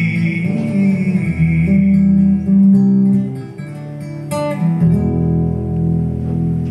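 Acoustic guitar playing a slow instrumental passage at the end of a song, notes and chords left to ring, with a quieter stretch in the middle and a bright high note about four seconds in.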